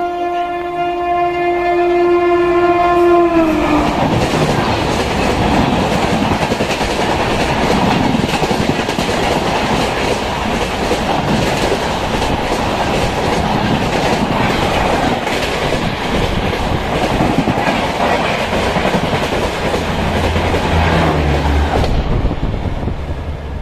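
Horn of the locomotive hauling the 12302 Howrah Rajdhani Express, one long steady note that drops in pitch as the engine passes about three and a half seconds in. Then the rush and rapid clickety-clack of the coaches' wheels over the rail joints as the train runs through at speed, falling away near the end as the last coach goes by.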